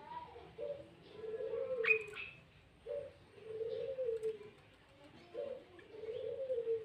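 A dove cooing: a low phrase of a short note followed by a longer, arched note, repeated three times at an even pace, with a brief higher bird chirp about two seconds in.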